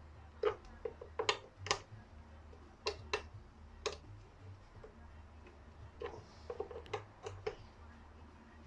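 Irregular light clicks and knocks of hard parts being handled and fitted together, in two loose clusters, over a faint low hum.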